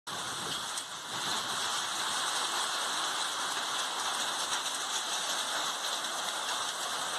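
Windstorm with heavy rain: a steady, dense hiss of wind-driven rain and gusting wind, getting a little louder about a second in.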